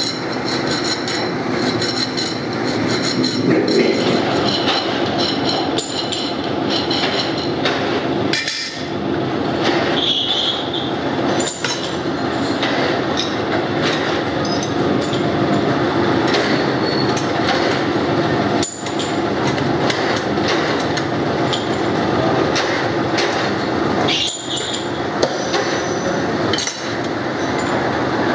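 A metal lathe and workshop machinery running with a steady din, with a hand file scraping on steel sprocket blanks turning in the lathe chuck, and scattered sharp metal clinks and knocks as the steel work is handled.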